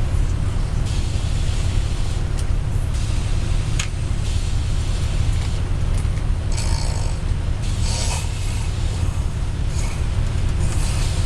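A man snoring in short, breathy rasps that come every second or two, over the steady low drone of a moving bus.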